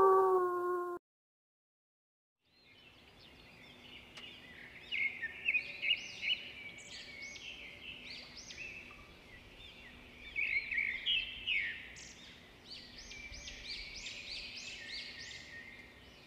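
A small songbird singing, with rapid, high chirps and trills in several bursts of song. At the very start, the tail end of a howl falls in pitch and cuts off about a second in.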